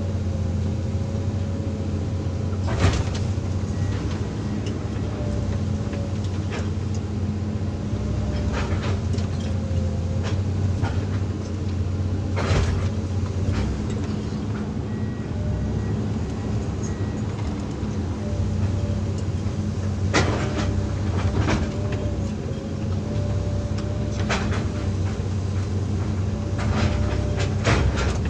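Hydraulic excavator's diesel engine running steadily under work, with a faint wavering whine over it and several sharp metallic clanks at irregular intervals.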